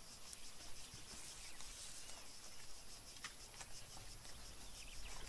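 Faint bush ambience: insects chirping in a rapid, even high pulse, with a few faint ticks.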